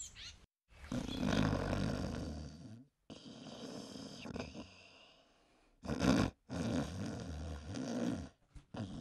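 Snoring: long, throaty snores about every two seconds, with one short, louder snort just before the middle.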